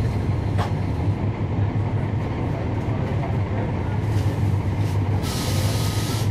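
Cummins ISL9 diesel engine of a 2011 NABI 416.15 transit bus running with a steady low drone, heard from inside the bus. About five seconds in, a short hiss of released air sounds for about a second.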